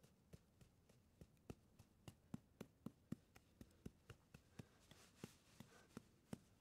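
Small hand trowel digging quickly in sand: a run of short, sharp taps, about four a second at the busiest, that stops shortly before the end.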